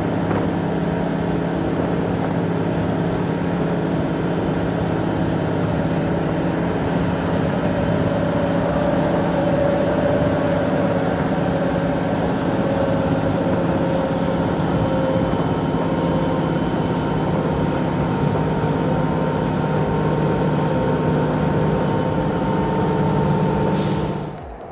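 Steady running noise heard from inside a moving vehicle, with a low hum and a few faint steady tones under it, cutting off sharply near the end.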